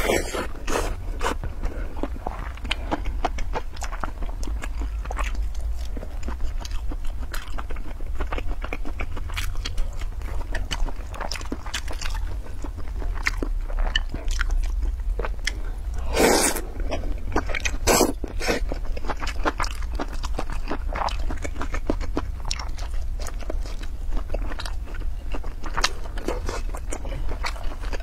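Close-miked eating of sausages and noodles: chewing and biting with many sharp, irregular mouth clicks, louder about 16 and 18 seconds in, over a steady low hum.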